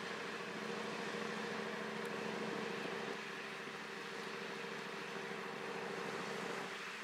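Ship and boat engines droning steadily, with two low hum tones under a constant rush of water and wind, as a pilot launch runs at speed past a container ship.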